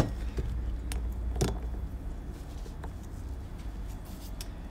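A few sharp metallic clicks and taps of hand tools on a Bing carburettor body clamped in a bench vise, as the threaded jet stock is driven down slowly into it. The loudest click comes right at the start and another about a second and a half in, with fainter ones later, over a low steady hum.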